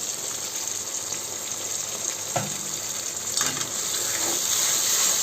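Ginger-garlic-onion paste frying in hot oil with a steady sizzle, with two short knocks from stirring, about two and a half and three and a half seconds in.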